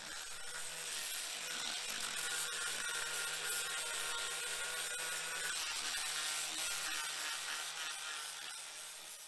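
A power tool working wood: a steady motor hum under a rough hiss, fading in at the start and out near the end.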